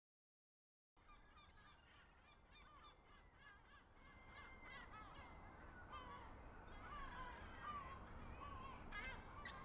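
Faint overlapping calls of a flock of birds, fading in after about a second of silence and growing gradually louder.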